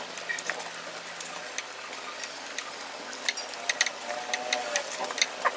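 Eating with chopsticks: a scattered run of small sharp clicks, wooden chopsticks tapping on a plate along with chewing, busiest in the second half.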